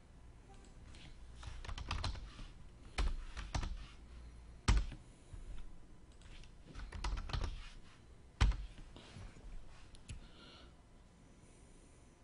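Computer keyboard typing and clicking in short scattered bursts, with two louder single knocks, about halfway through and again a few seconds later.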